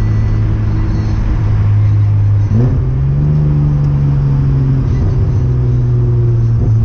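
Naturally aspirated 3.0 12-valve inline-six (C30NE) of a 1994 Chevrolet Omega running under way through a 2.5-inch exhaust with two sport mufflers. About two and a half seconds in, the revs jump up sharply, then slowly fall away.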